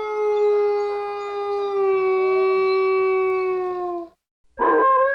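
Wolf howling: one long howl that sinks slightly in pitch and stops about four seconds in. After a short break, a second howl starts near the end, rising quickly to a higher held pitch.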